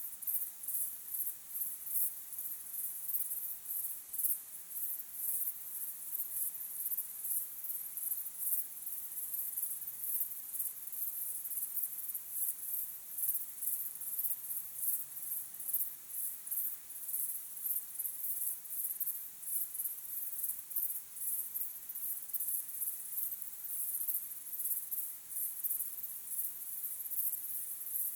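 A chorus of crickets chirping: a steady, very high-pitched pulsing trill with no pauses.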